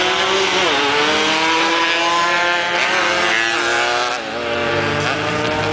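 Drag-racing motorcycle engine accelerating hard down the strip, its pitch climbing and then dropping back at each gear shift, about three times. A deeper engine rumble comes in near the end.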